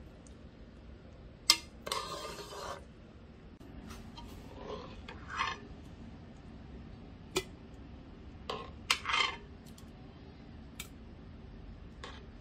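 A metal spoon scraping and scooping wet, sugared diced nectarines in a cooker pot and dropping them into a glass jar, with several sharp clinks of the spoon between short stretches of scraping.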